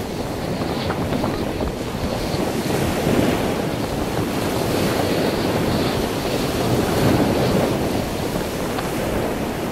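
Wind buffeting the microphone over the steady wash of breaking sea surf.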